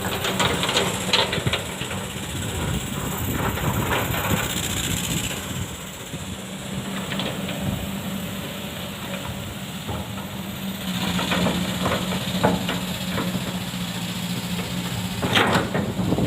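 Kobelco SK200 hydraulic excavator's diesel engine running steadily under load, with scattered knocks and scraping from the bucket working in sand. The engine gets louder a little past the middle, and a sharp clatter comes near the end.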